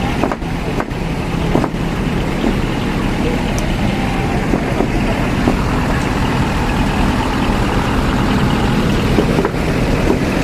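Several big trucks' engines running together in a steady, loud, low rumble.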